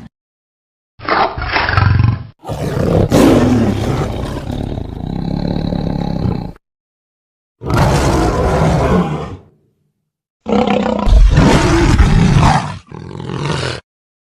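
Five separate roars of a tiger-like creature, played one after another, each cut off abruptly with dead silence between; the second is the longest, about four seconds.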